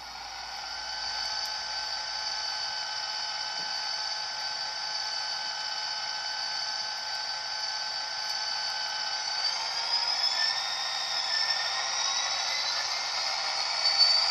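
H0-scale model locomotive's ESU LokSound decoder playing EMD SD40T-2 diesel engine sound through its small speaker, thin and with no low end. It runs steadily, then rises in pitch from about two thirds of the way in as the engine revs up.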